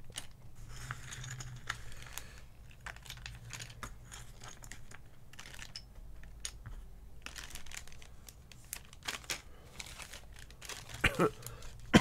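Clear plastic zip-lock bags crinkling and rustling as they are handled and opened, with irregular small clicks of plastic keycaps.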